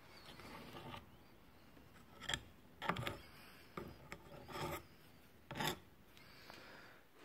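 A run of short, irregular scrapes and rubs of a tool against the metal parts of a brushcutter gearhead while grease is worked into its unsealed bearings.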